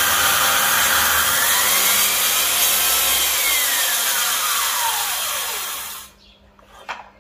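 Handheld power saw ripping a strip off a cẩm xe hardwood board lengthwise, loud and steady. Over the last few seconds of the cut a whine falls in pitch, then the sound stops abruptly about six seconds in. A single knock follows about a second later.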